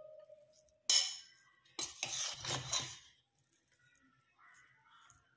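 Metal spatula scraping and clinking against the inside of a metal pressure cooker while mixing cooked rice. There is a sharp clink about a second in, then a louder run of scrapes and knocks around two to three seconds.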